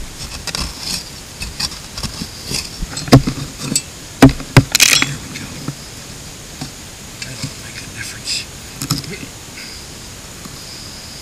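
Small digging shovel chopping and scraping into woodland soil, with a few sharp strikes a few seconds in and a longer scrape of dirt just after, then softer scraping and rustling of loose dirt and leaves.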